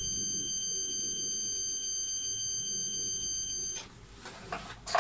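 Multimeter continuity beeper sounding one steady, even, high-pitched tone, showing an unbroken circuit in the vacuum cleaner's wiring at the point being probed. It cuts off suddenly about four seconds in, and a few light clicks follow.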